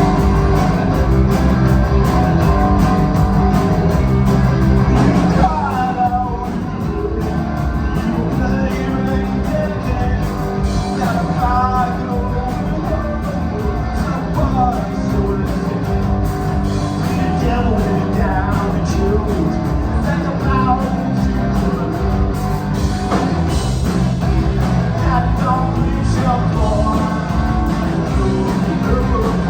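Rock music with a steady beat, guitar and a singing voice.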